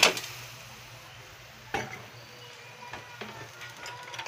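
Skinned peanuts poured from a plastic colander clattering into a square pan, followed by a single knock a little under two seconds in and a few light ticks as the nuts settle.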